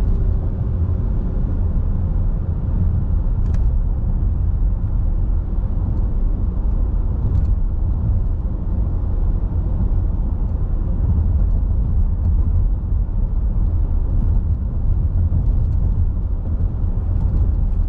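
A car driving steadily along a road, with a constant low rumble of tyre and engine noise heard from inside the cabin. Two faint ticks come through, a few seconds in and again about halfway.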